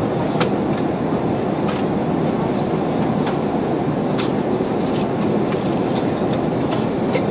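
Steady roar of engine and airflow noise in the cabin of a Boeing 787 Dreamliner in flight, with a few light clicks scattered through it.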